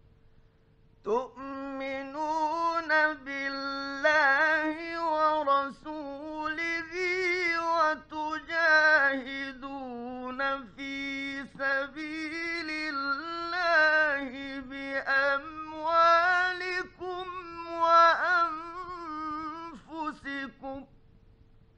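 A solo male Quran reciter chanting in the melodic mujawwad style, holding long, ornamented phrases broken by short breaths. This is an old studio recording, and a faint steady hum runs under the voice throughout. The voice comes in about a second in and stops about a second before the end.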